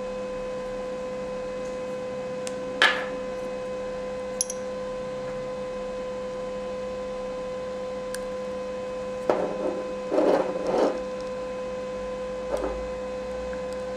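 Steady background hum, with a few short clicks and squishing sounds from a plastic pump dispenser being pressed into a small glass beaker; the loudest cluster comes about nine to eleven seconds in.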